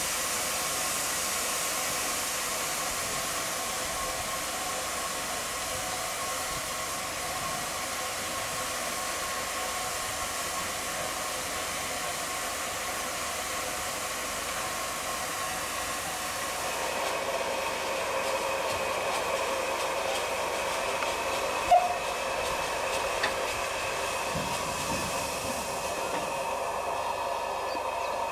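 Steam locomotive hissing steadily with escaping steam. A steadier ringing tone joins in a little past halfway, and there is one sharp clank about two-thirds of the way through.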